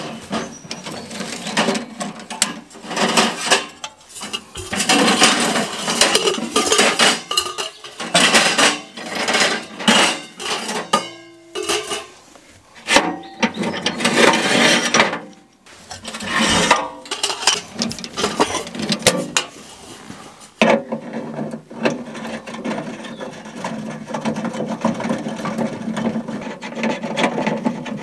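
Portable sheet-metal wood stove and its chimney pipe sections clanking and scraping as they are handled and fitted together, in an irregular run of knocks and rubbing noises with brief pauses.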